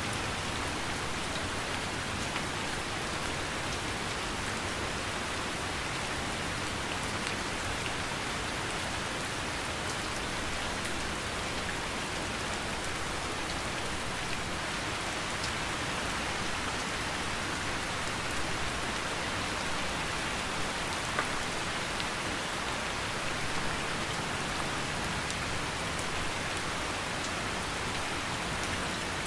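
Heavy rain falling steadily: an even hiss with scattered individual drop ticks.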